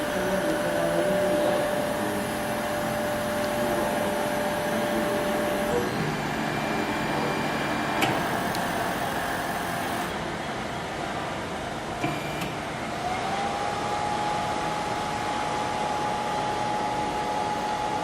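WDS-620 BGA rework station running, its hot-air blowers and cooling fans giving a steady rushing noise. A steady whine stops about six seconds in, a higher whine glides up and holds from about two-thirds through, and there are two light clicks.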